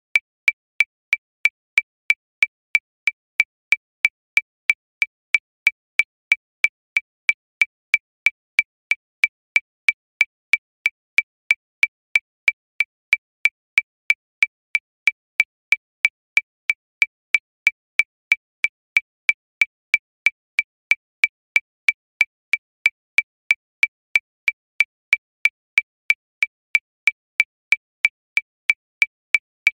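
Metronome clicking steadily at 185 beats per minute, about three even clicks a second, each click the same high pitch.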